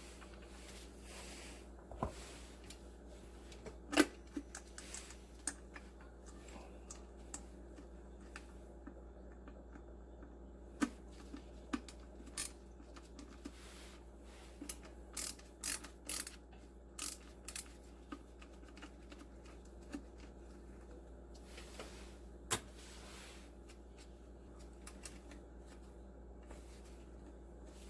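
Scattered light clicks and knocks of small hard objects being handled, with one louder knock about four seconds in and a quick run of clicks about halfway through, over a steady low hum.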